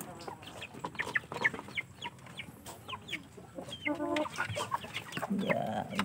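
Young Aseel Parrot chickens about two months old giving many short, high peeping calls and clucks, with a lower cluck about four seconds in.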